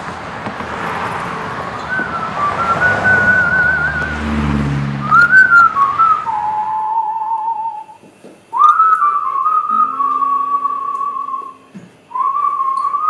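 A man whistling a slow melody through cupped hands: one wavering tone in several drawn-out phrases with short breaks between them, over a background hiss that fades away about two-thirds of the way through.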